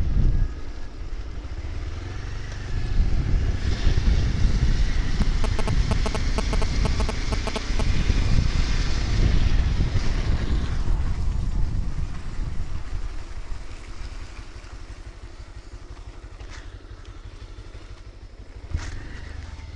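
A two-wheeler's small engine running while it is ridden, with a dense rumble that drops to a clearly quieter level after about thirteen seconds.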